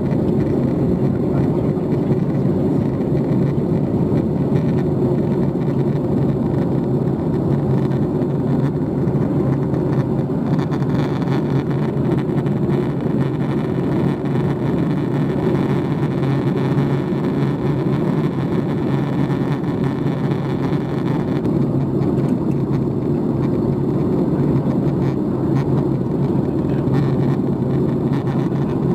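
Steady cabin noise of a Boeing 737 MAX 8 in flight: the rumble of its CFM LEAP-1B engines and airflow, with a constant low hum. A brighter hiss joins for about ten seconds in the middle.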